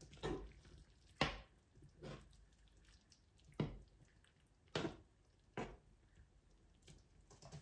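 About six faint, short taps of a kitchen utensil against cookware, spaced irregularly a second or so apart.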